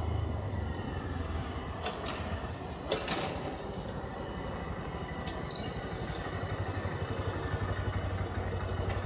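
Honda Grom's small single-cylinder four-stroke engine running at low speed as the motorcycle rolls in, its low putter growing stronger near the end as it pulls up close. A few faint clicks and a steady high-pitched whine sit underneath.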